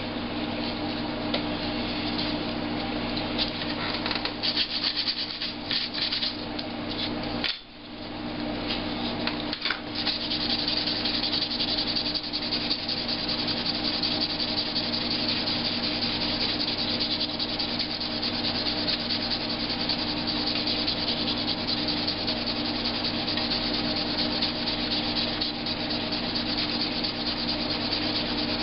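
Sandpaper rubbing over dried filler on a laptop's plastic case, a continuous scratchy sanding with a short break about seven and a half seconds in.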